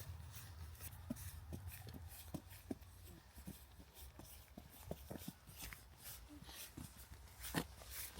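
Faint footsteps on a forest path at a steady walking pace, about two steps a second, over a low steady rumble.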